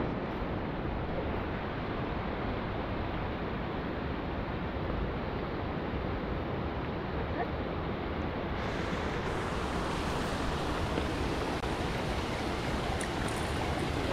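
Fast-flowing mountain river rushing steadily, an even noise of running water.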